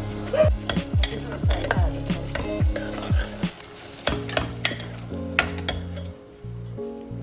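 Onions frying in a pan while a spatula stirs them, with a sizzle and repeated clicks and scrapes of the utensil against the pan; the stirring is busiest in the first three seconds.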